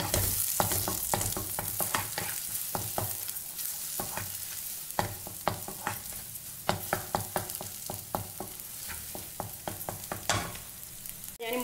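Eggs frying in a little oil in a non-stick pan, with a steady sizzle, while a wooden spatula scrapes and taps the pan many times, breaking them up into scrambled egg.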